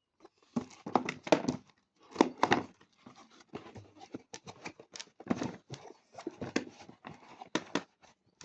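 Hands handling a plastic drain cleaner and its packaging: an irregular run of clicks, knocks and rustles, loudest in two bursts near the start.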